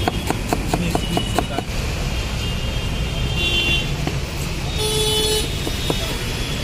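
Knife chopping onions on a wooden block in quick strokes, about five a second, stopping about a second and a half in, with a few single chops later. Under it runs a steady traffic rumble, and vehicle horns toot twice around the middle.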